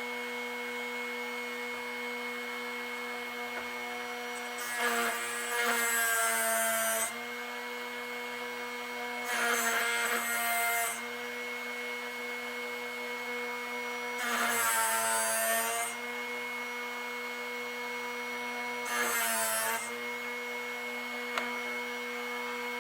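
Drill Doctor drill-bit sharpener's motor running steadily, with four louder grinding passes as the bit is turned half a turn at a time against the sharpening wheel.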